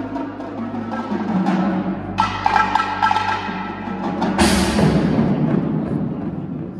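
High school indoor percussion ensemble playing: drum strokes, then ringing chords on marimbas and vibraphones about two seconds in, and a loud crash with a deep drum hit about four and a half seconds in that rings on.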